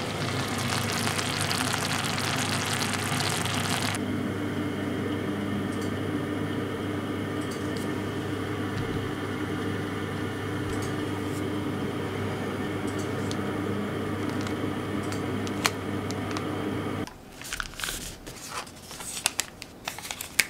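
A steady low machine hum with a few fixed tones in it, like an electric appliance running. A loud hiss lies over it for the first four seconds. About seventeen seconds in the hum stops, and a few light clicks and scrapes follow.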